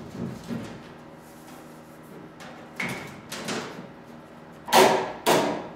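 Thin aluminium firewall cover sheet knocking and flexing against the aircraft's wooden firewall as it is pressed into place by hand: about six knocks, the two loudest near the end.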